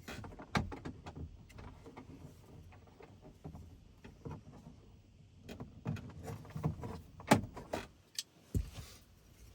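Small hand tool working at plastic trim on a truck door: a run of irregular clicks, taps and scrapes, busier in the second half, with a sharp knock about seven seconds in.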